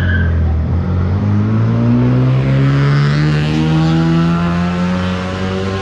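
Vintage open-top racing car's engine accelerating hard, its note rising steadily in pitch for several seconds before levelling off near the end.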